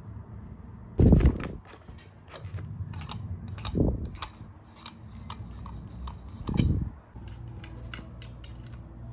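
Small metal parts and tools being handled: a run of sharp metallic clicks and ticks, with three heavier knocks about one, four and six and a half seconds in, over a low steady hum.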